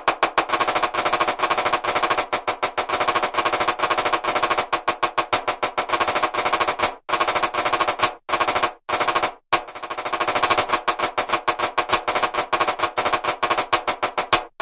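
Programmed marching snare drum playing a fast rudimental exercise of rapid sixteenth-note strokes with accents, over a stick-click metronome. Right-hand strokes are pitched slightly higher than left-hand strokes. The strokes break off briefly a few times about seven to nine and a half seconds in, then pick up again with a swell in loudness.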